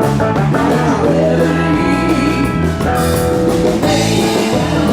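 Rock music with guitar, drums and singing, cutting off suddenly near the end.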